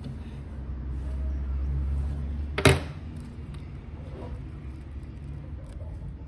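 A low steady rumble that swells for a second or two, with one sharp knock about two and a half seconds in.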